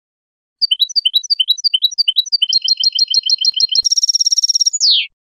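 European goldfinch song phrase from a Málaga-style tutoring recording. It opens with a run of repeated two-note chirps, speeds up into a fast even trill, and ends with a brief buzzy rattle and a falling slur.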